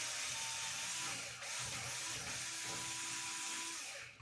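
A small electric motor whirring steadily, with a brief dip about a second and a half in.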